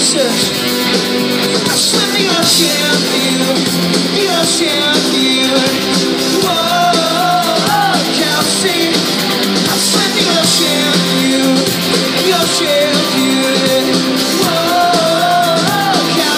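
Live rock band playing loudly, heard from the audience: electric guitars, keyboard and drums, with a man singing a wavering melody over them.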